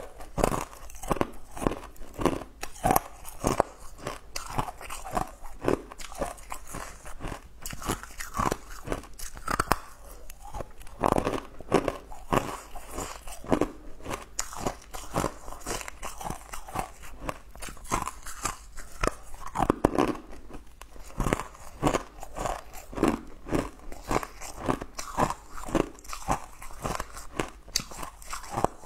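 Close-miked crunching and chewing of hard, sugar-coated blue candy cubes: a dense run of crisp crunches throughout.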